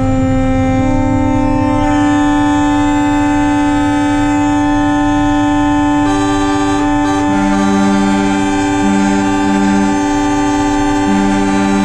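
Several truck air horns sounding together in long, overlapping steady tones, with a lower horn cut in and out in short blasts in the second half.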